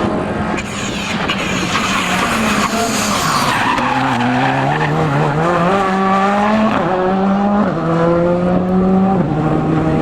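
Rally car sliding through a corner with its tyres skidding for the first few seconds. It then accelerates away, the engine note climbing with a couple of quick upshifts in the second half.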